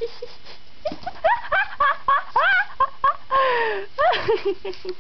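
A woman laughing in quick, high-pitched rising bursts, then a longer breathy falling laugh, with a few light knocks as a wicker basket tips over.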